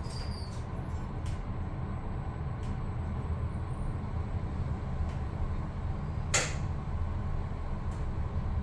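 Daemyung-remodelled elevator car travelling upward with a steady low rumble, and a single sharp click about six seconds in.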